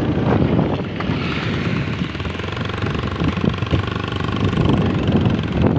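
Steady rattling engine and road noise of a moving vehicle, heard from on board.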